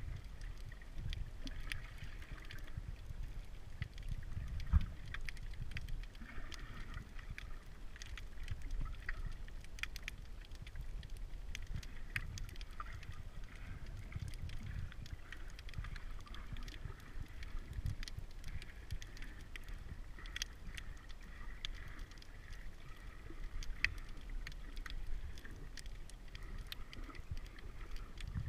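Underwater sound picked up by a submerged camera in its housing: a steady low rumble of moving water, scattered sharp clicks and crackles, and a single thump about five seconds in.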